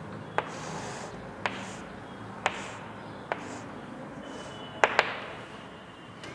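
Chalk tapping and drawing on a chalkboard as straight lines are drawn: sharp taps about once a second, with the last two close together a little before the end.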